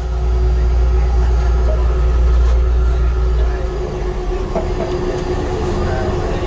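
Train running: a steady low rumble with a constant mechanical tone over it. A little past halfway the deepest part of the rumble eases and turns rougher.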